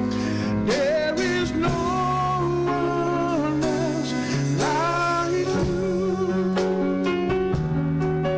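A song plays: a wavering melody with vibrato over strummed guitar and held chords.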